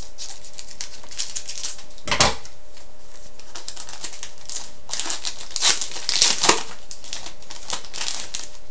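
Scissors cutting open a trading-card pack's wrapper, then the wrapper crinkling and the cards being pulled out and handled: a run of light clicks, snips and rustles, with a sharp click about two seconds in and a busier stretch a little past halfway.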